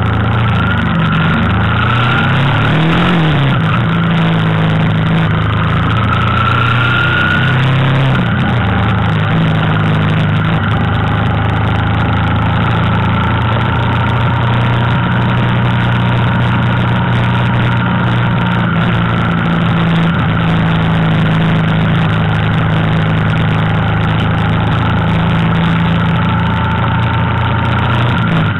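Motorcycle engine running at cruising speed on the road, under a steady rush of wind and road noise. The engine pitch dips and rises in the first few seconds, then holds steady.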